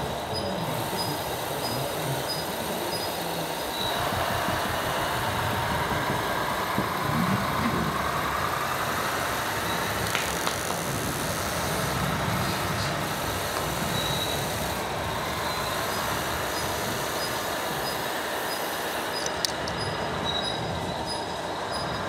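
Radio-controlled hydraulic excavator working, its pump whining and slowly climbing in pitch as the arm moves, from about four seconds in, over steady mechanical noise.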